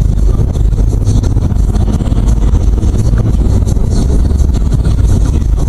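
A car driving through city traffic, heard from inside the cabin through a dashcam's microphone: loud, steady engine and road rumble with light rattling.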